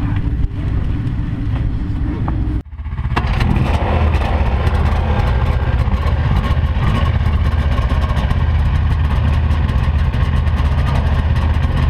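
A motor vehicle engine idling, cut off abruptly about two and a half seconds in; then snowmobile engines idling steadily close by.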